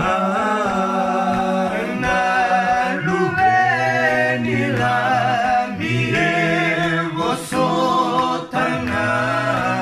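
Unaccompanied choir singing in several voice parts, with long held chords that move to new notes every second or two.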